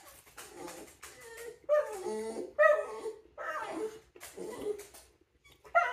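A dog whining in short, high whimpers, several times over, with the faint crunch of a crispy hash brown being bitten and chewed.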